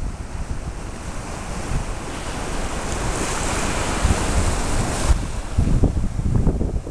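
Sea surf washing against a rocky shore: a rushing wash builds over a couple of seconds and ends abruptly about five seconds in. Wind buffets the microphone with low rumbles, heaviest near the end.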